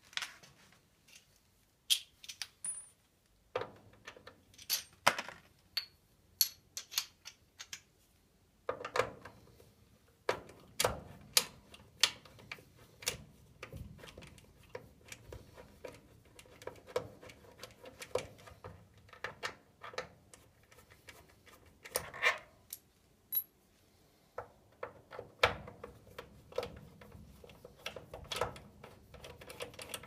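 Irregular metallic clicks, taps and clinks of a screwdriver working on the screws and fittings of a gas furnace's draft inducer blower as it is taken apart.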